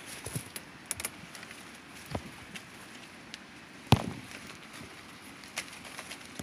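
Hands picking silver vine fruit among tangled vines and dry twigs: scattered rustling, clicks and light snaps, with one sharp knock about four seconds in.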